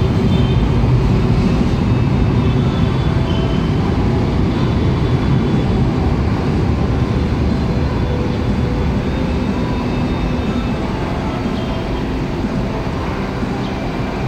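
LRT-1 4th Generation light rail vehicle pulling away along the track, a steady rumble that slowly fades as the train recedes.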